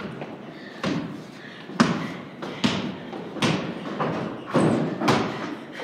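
Basketball dribbled on a wooden plank floor: a steady run of thuds, a little under one a second, each ringing on in the large hollow barn loft.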